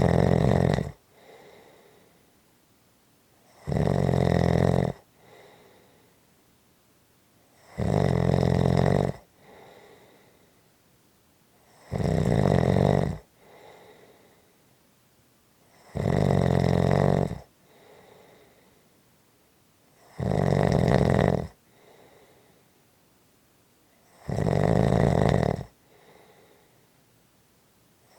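Steady, regular snoring: a loud snore about every four seconds, each lasting a second or so, followed by a faint short breath.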